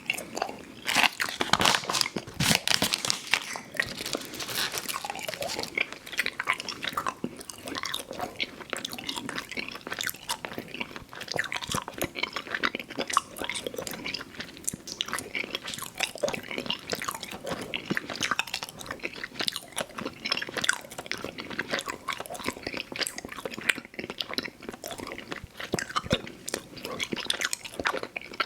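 Close-up chewing of Fruit Roll-Ups candy: sticky, wet mouth sounds with many small irregular crackles and smacks.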